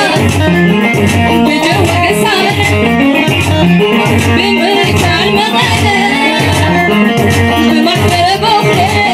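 Tigrinya wedding song: a singer's wavering melody over a strong, steady beat of just under two a second.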